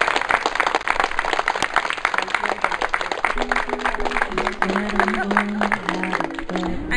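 Crowd applauding, many hands clapping, with music of slow held low notes coming in about two seconds in and carrying on under the clapping.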